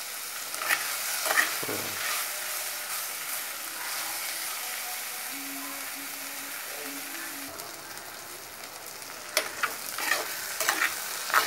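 Onions and green chillies sizzling in hot oil in a clay pot, stirred with a metal ladle that scrapes and clicks against the pot a few times early on and in a quick run near the end.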